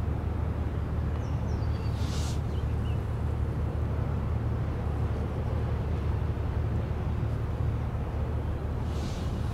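Steady low drone of a passing electrically propelled inland motor cargo ship, with water noise; a short high hiss about two seconds in and again near the end.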